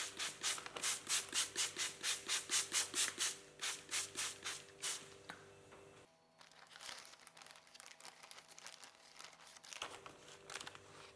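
A hand spray bottle spritzing water onto a paper towel: a quick run of short hissing sprays, about three or four a second, that stops about five seconds in. After that comes a softer, irregular rustle of the paper towel and plastic bag being handled.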